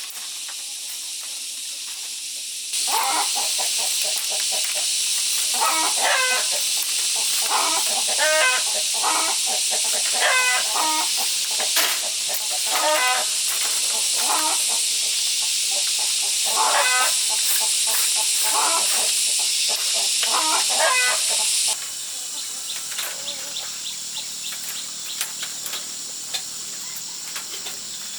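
Poultry calling repeatedly in short clucks over a steady high hiss. The loud stretch starts and stops abruptly, leaving a quieter background with faint ticks.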